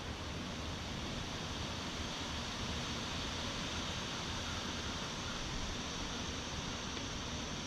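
Steady wind blowing, a continuous rushing hiss with a low rumble underneath.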